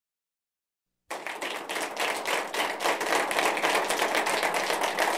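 Crowd applause, many hands clapping densely and irregularly, starting suddenly about a second in.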